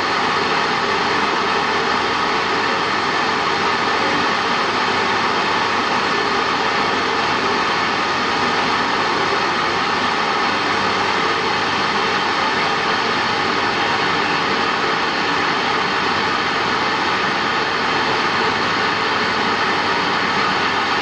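Alfa Laval BRPX309 disc-bowl centrifuge and its electric drive motor running at speed on a test run: a loud, steady, even whir that does not change.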